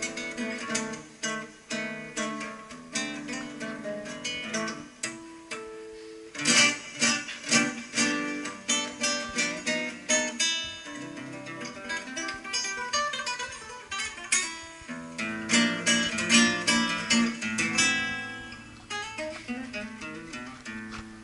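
Solo nylon-string classical guitar played with plucked notes, swelling into louder, fuller strummed passages about six seconds in and again a little past the middle.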